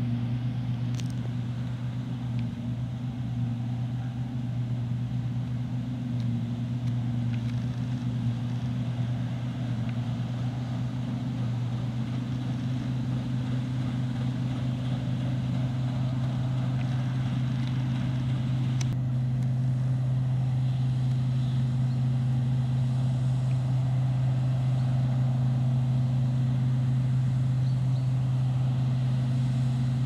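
New Holland TX36 combine harvester's diesel engine running steadily under load while cutting wheat: a constant low drone that grows a little louder in the second half.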